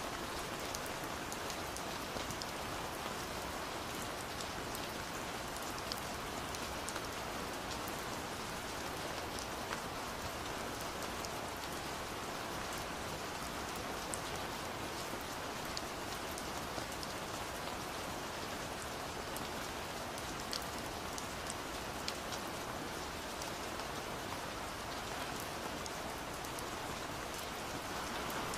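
Recorded rain ambience: a steady, even hiss of falling rain with scattered individual drops ticking sharply on top.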